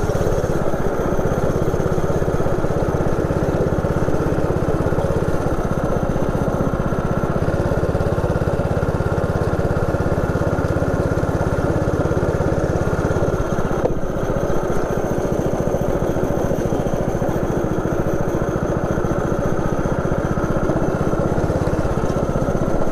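Small 160 cc single-cylinder four-stroke go-kart engine running hard and close to the microphone as the kart laps the track, with a brief dip about 14 seconds in.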